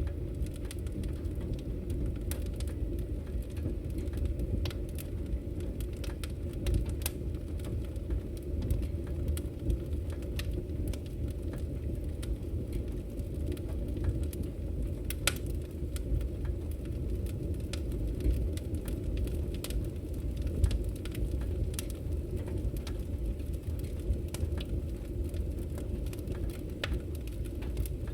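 Wood fire crackling in an open fireplace: a steady low rumble of flames with irregular sharp pops and snaps, a few of them louder than the rest.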